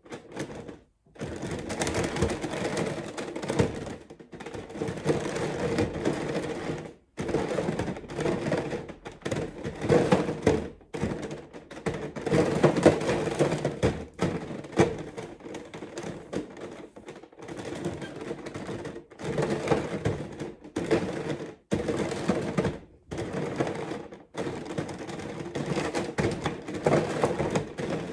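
Plastic layers of a giant 3x3 Rubik's cube being turned by hand in runs of moves, clacking and scraping, with short pauses between the runs.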